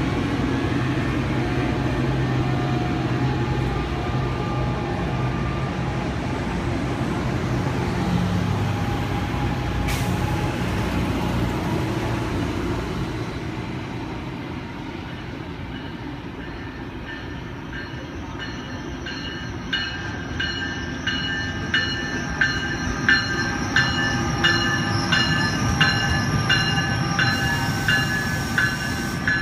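NJ Transit Arrow III electric multiple unit pulling out and accelerating. Its rumble carries a pitched hum from the GTO-inverter AC traction drive, and it fades over the first half. From about 20 seconds in, a passing bi-level commuter train's wheels click over rail joints in a quick, regular rhythm with a metallic ring.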